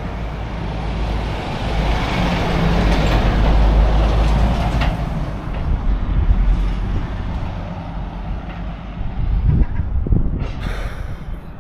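Heavy goods lorry engine running close by, swelling to its loudest a few seconds in and then easing off, with a short hiss near the end.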